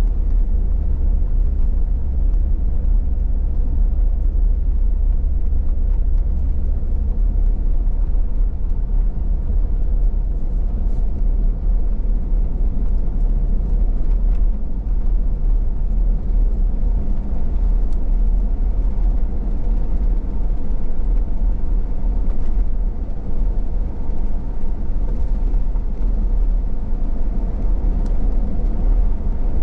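Car driving on a road, heard from inside the cabin: a steady low rumble of engine and tyres.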